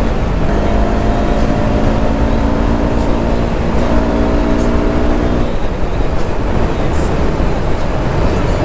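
KTM RC 390's single-cylinder engine running steadily at highway cruising speed under heavy wind rush. The engine note steps up a little about four seconds in and turns uneven for a few seconds before settling again.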